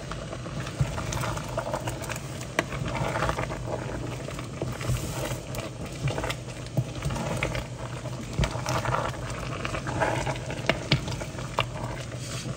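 Diced chicken and vegetables cooking in butter and flour in a large pot, sizzling steadily as a wooden spoon stirs and scrapes them, with scattered light clicks of the spoon. The flour is being cooked into a roux-like coating.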